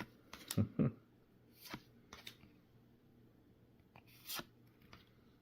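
Trading cards handled and flipped by hand: a scatter of soft clicks and rustles of card stock, with a few light thumps about half a second to a second in.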